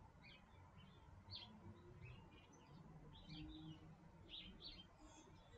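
Faint bird chirps, short and high, about two a second, over quiet room tone.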